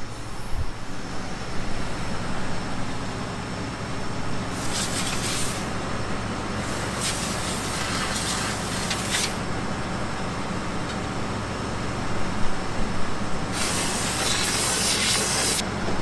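Compressed air hissing from an air hose nozzle in three long blasts, the second and third the longest, blowing built-up dust and chaff out from around a combine's chopper belt. A steady machine hum runs underneath.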